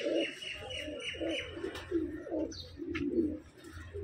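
Domestic pigeons cooing, one rolling coo after another.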